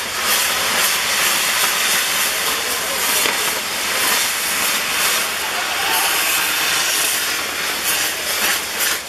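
Firework wheel's fountain drivers spraying sparks with a loud, steady hiss, with a few faint crackles; the hiss stops suddenly at the end.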